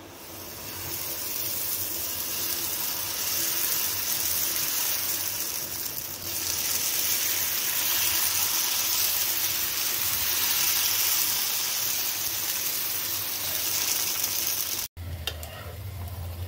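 Dosa batter sizzling on a hot tawa as it is spread thin with a ladle and crisps. It is a steady hiss that builds over the first couple of seconds and cuts off abruptly near the end.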